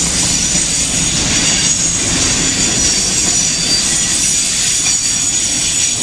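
Freight train cars rolling past close by: a loud, steady rumble of wheels on rail with a high, steady wheel squeal over it.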